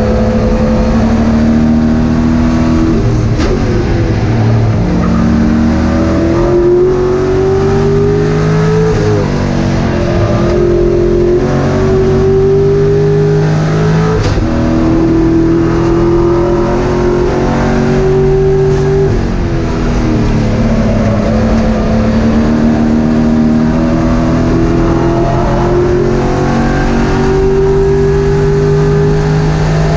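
Race car engine at hard throttle, heard from inside the cockpit: its pitch climbs and drops sharply at each upshift, several times. About two-thirds through it falls away more slowly as the car slows for a corner, then climbs again.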